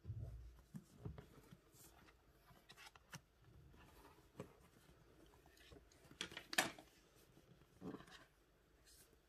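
Quiet handling noises from a cardboard box being turned over and handled: a low thump at the start, then scattered light taps, clicks and rustles. The sharpest click comes about six and a half seconds in.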